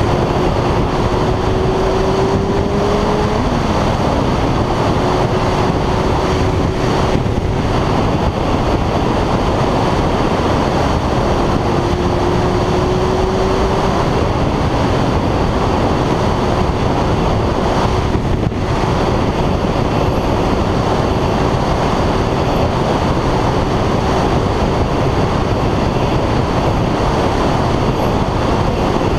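Wind rushing over the microphone of a moving motorcycle, with the engine running underneath as a steady drone. The engine's pitch rises a little twice, in the first few seconds and again about halfway through, as the bike speeds up.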